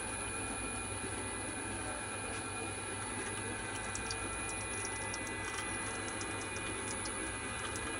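Small screw-type cold oil press running steadily while pressing poppy seeds: an even mechanical hum from its motor and pressing screw, with a run of light ticks about halfway through.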